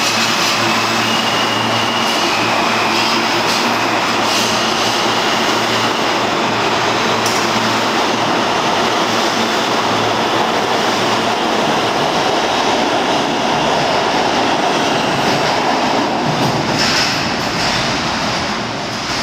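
R160 subway train pulling out of an underground station and running past close by: a loud, steady rumble of wheels on rail, with a high whine in the first few seconds and occasional sharp clicks. The noise drops off near the end as the last car clears the platform.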